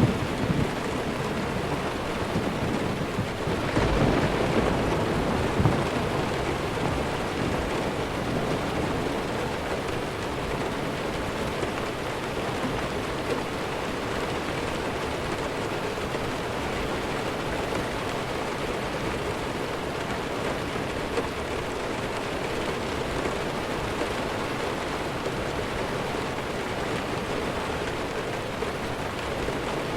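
Steady heavy rain, with a low rumble of thunder swelling about four seconds in and dying away by about six seconds.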